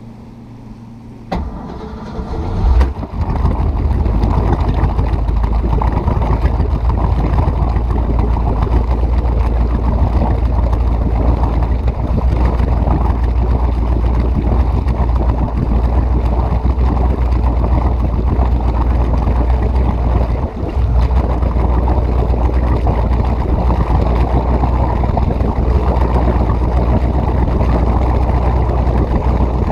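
1976 ski boat's inboard engine coming up to power over the first few seconds, then running steadily at speed with a deep rumble and rushing wind and water noise.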